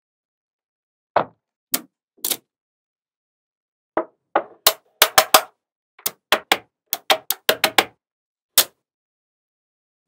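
Small magnetic balls clicking as pieces snap into place: three sharp clicks, then after a pause a quick run of about fifteen, with dead silence between them.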